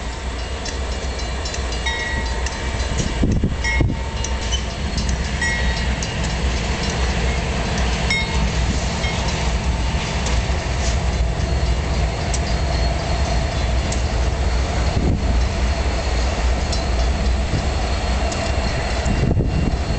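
A freight train's three diesel locomotives, a GE Dash 9, a GE Dash 8 and an EMD SD75, pass in turn with a steady low engine rumble. Wheels clatter and click on the rails throughout.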